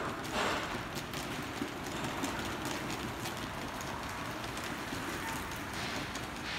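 Walking footsteps on a tiled arcade floor with irregular light clicks, over a steady hiss of rain.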